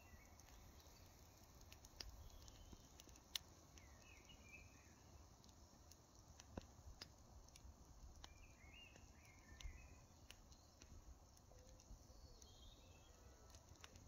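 Quiet outdoor evening ambience: a campfire crackling faintly with scattered small pops, and a few short bird chirps three times over, with a low rumble underneath.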